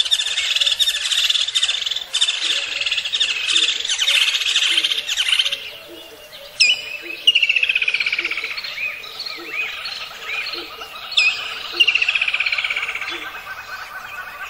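Rainforest bird chorus: many birds chirping and trilling in a dense, fast, high chatter, then from about six seconds in, sharp falling whistles and long descending trills.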